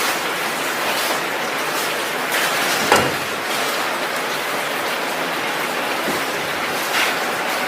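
Steady hissing din of factory machinery, with a single sharp knock about three seconds in and a lighter one near the end.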